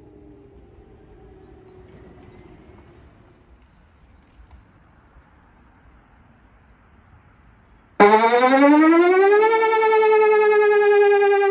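Whelen WPS 2809 electronic civil-defence warning siren starting up loud and abruptly about eight seconds in. Its tone glides up for a second and a half, then holds with a slowly sinking pitch. Before that there is only faint background.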